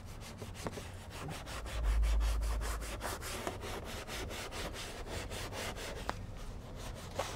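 Stiff-bristled detailing brush scrubbing grime off a truck's undercarriage in quick back-and-forth strokes, about five a second. A low rumble comes in about two seconds in for around a second.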